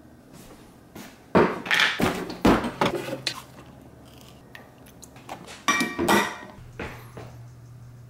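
Kitchen clatter of cups and dishes knocked and set down on a countertop: a run of sharp knocks and clinks starting about a second in, then a shorter burst a little past the middle, over a low steady hum.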